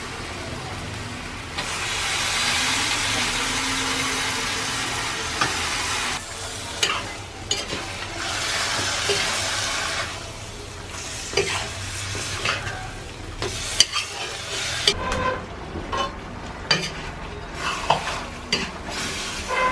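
Raw pork pieces sizzling as they fry in hot oil in a black iron wok, stirred with a metal spatula that scrapes and knocks against the pan. The sizzle swells about two seconds in as the meat goes in. It dies down after about fifteen seconds, leaving sharp spatula knocks.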